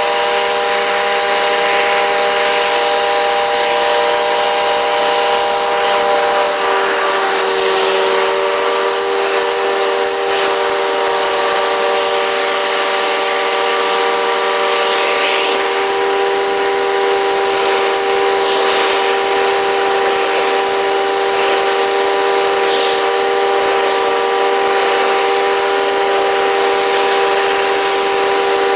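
Eureka PowerSpeed upright vacuum cleaner running steadily, its motor giving a constant whine with a high steady tone over the rush of suction.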